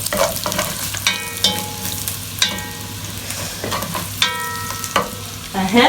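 Curry frying and sizzling in a pot while it is stirred with a spoon. The spoon clinks against the metal pot a few times, and each clink rings briefly.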